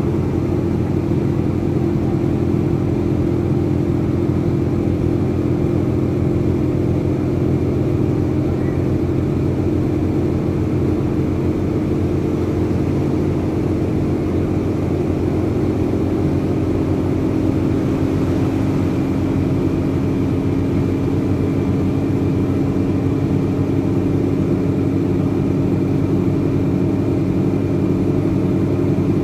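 Rear-mounted Cummins ISBe 185 inline six-cylinder diesel of a Materfer BU1115LE city bus running, heard from inside the passenger cabin as a steady engine drone. About halfway through its note drops a little and then holds.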